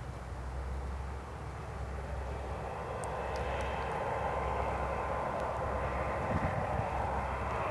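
Steady aircraft engine noise from an airliner under tow by a TaxiBot tug: a rushing hiss over a low hum, growing a little louder about halfway through.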